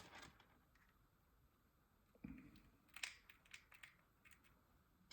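Near silence broken by faint handling noises: a soft knock about two seconds in, then a few light clicks and ticks, as small objects are handled.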